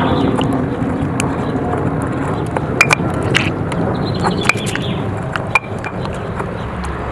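Stone pestle mashing roasted tomatoes in a granite mortar: a steady wet squishing with scattered sharp clicks of stone against stone.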